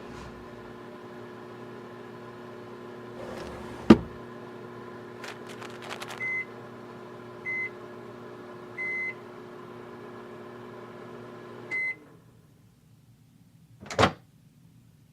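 Microwave oven running with a steady electrical hum, heating a cup of tea. There is a sharp click about four seconds in and three short beeps a little over a second apart. The hum cuts off with a final beep about twelve seconds in, and a knock follows near the end.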